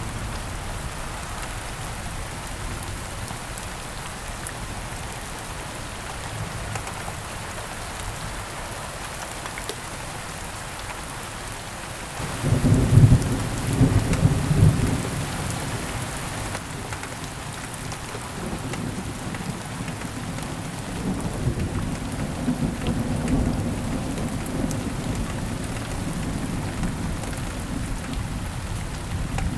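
Steady rain falling, with a clap of thunder breaking in suddenly about halfway through, loudest for a few seconds, then rolling on as a lower rumble under the rain.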